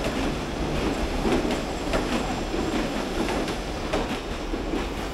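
Passenger train coaches rolling slowly along the platform as the train pulls in, the wheels clattering over the rail joints with a steady rumble and irregular sharp clacks.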